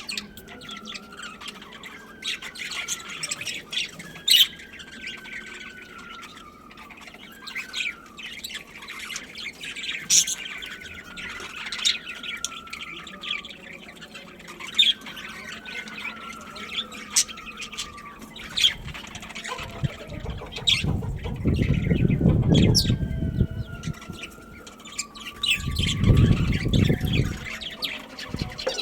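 A flock of budgerigars chattering, with a steady stream of short, sharp chirps and squawks and a repeated slow, falling whistled note. Twice in the second half a louder, low rustling noise rises over the chatter.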